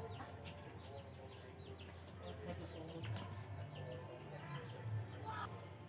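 Small birds chirping: many short, quick, falling chirps, over a faint on-and-off low hum.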